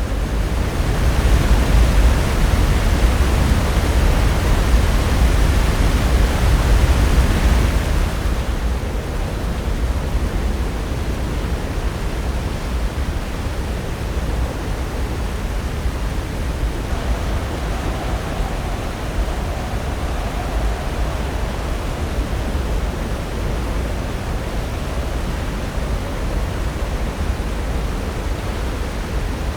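Pacific Ocean surf: a steady rush of breaking waves. It swells louder and hissier for the first several seconds as a wave breaks, then eases to an even, lower wash.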